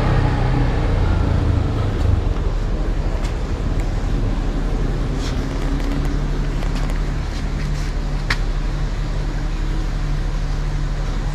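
Steady low mechanical hum, like an engine or motor running at idle, over a light background haze. A couple of faint clicks come about five and eight seconds in.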